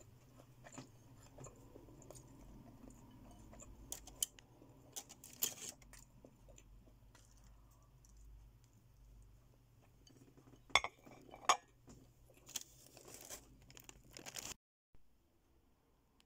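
Faint, scattered clinks and clicks of fingers against a ceramic bowl, with quiet chewing, as rice with dried fish is eaten by hand; a few sharper clinks come about halfway through and again later on.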